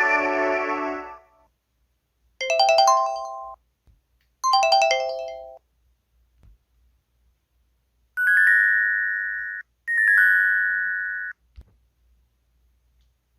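MS500 mobile phone's built-in electronic sound effects played one after another. The tail of a multi-note jingle ends about a second in, then come two short melodic jingles, then two chimes that each open with a quick run of notes and hold a single high tone.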